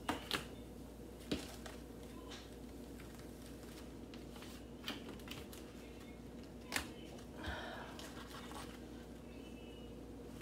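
A few scattered clicks and light knocks from kitchen utensils and containers being handled, over a steady low hum.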